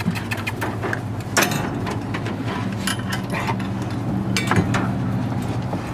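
Metal clinks and a few sharp knocks as a steel dog box door is shut and its latch and chain are fastened, over a steady low hum.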